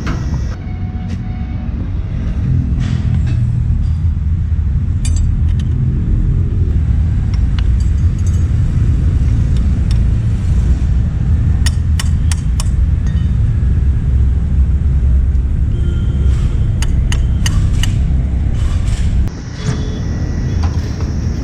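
Steady low rumble, like machinery or traffic, with scattered sharp clicks and taps, most of them in the second half, and a brief drop in level near the end.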